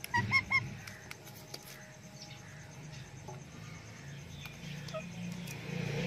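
Parrot giving three short, quick honk-like calls right at the start, each a brief pitched note, followed by faint chirps and small clicks.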